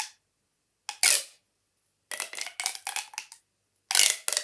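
Ribbed plastic pop tubes being stretched and pushed back in, each stroke a quick crackling zip of many small clicks. There are several strokes, with a longer run in the middle.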